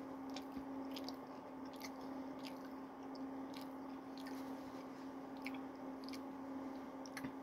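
A person chewing French fries, with soft wet mouth clicks about once or twice a second, over a steady low hum.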